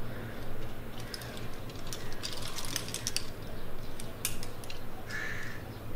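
Rattling, ratchet-like clicks of climbing gear, in a quick cluster about two seconds in and a few more a second later, over a low steady hum; a short high note sounds near the end.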